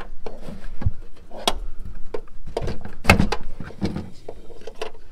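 Irregular clicks and knocks as a magnetic ride control module and its wiring connector are handled and slid into place, about a dozen separate hard taps.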